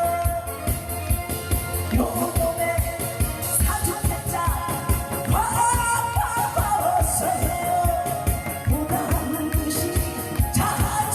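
A singer performing over backing music with a steady beat, in the style of a Korean trot song.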